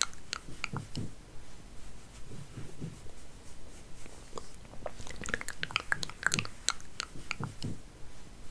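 Close-miked hair being played with and combed: crackly scratching and rustling in clusters, with soft low brushing thumps between, thinning out in the middle and densest in the second half.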